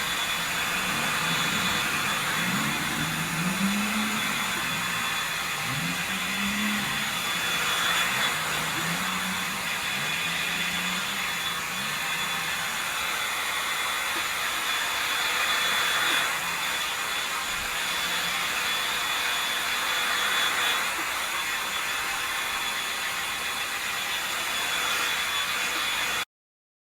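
Steady machine noise: an even rushing hiss with a faint high whine, and a low wavering hum through the first twelve seconds or so. It starts and stops abruptly.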